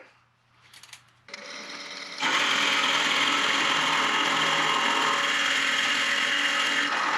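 Wood lathe starting up about a second in, then a tool cutting into the spinning wood from about two seconds in, hollowing out the inside of a turned piece with a steady, even cut.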